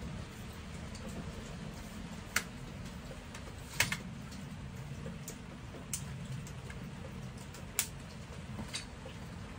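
Scattered sharp clicks and light knocks of small objects being handled, about half a dozen with the loudest a couple of seconds and about four seconds in, over a steady low hum.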